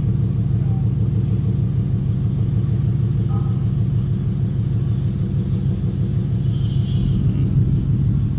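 Ford S197 Mustang GT's Coyote 5.0 V8 idling steadily with a deep rumble, heard from inside the cabin. It has a catless (cat-delete) exhaust with axle-back quad tips.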